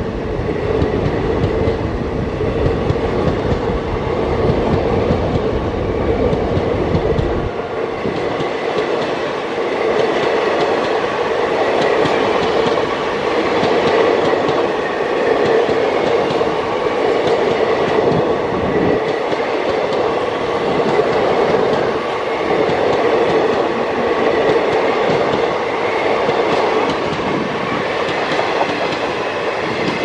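Passenger coaches of an Indian Railways express rolling past close by at speed. A steady rumble mixes with rhythmic wheel clatter and a steady hum. The deepest part of the rumble drops away about seven seconds in.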